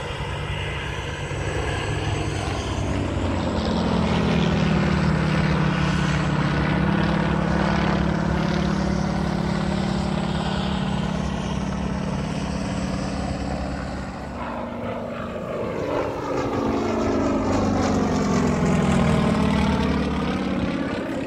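Yak-52 aerobatic trainer's nine-cylinder radial engine and propeller droning overhead during a display. The engine note holds steady for a while, dips in loudness about two-thirds through, then swells again with its pitch sliding down and back up as the plane manoeuvres.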